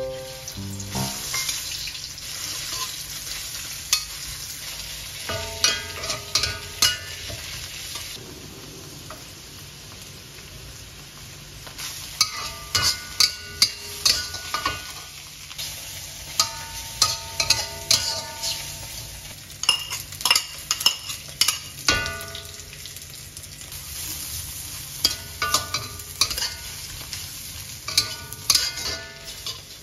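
Sliced mushrooms sizzling steadily as they fry in pork lard in a black wok. A metal wok spatula scrapes and clanks against the wok in repeated spells of stir-frying.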